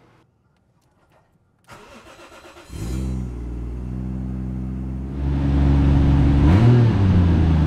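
Toyota Chaser JZX100's straight-six engine cranked by the starter for about a second, then catching and settling into a steady idle that grows louder about halfway through, with a brief rise and fall in pitch near the end. It is the first start after the idle speed control valve was cleaned and refitted, and the idle holds steady.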